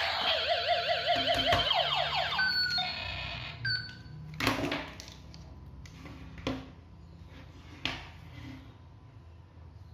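Battery-powered toy gun's electronic sound effect: warbling, rapidly sweeping tones that wind down and fade over the first three seconds, followed by two short beeps. Then three separate plastic clicks or knocks, a second or two apart.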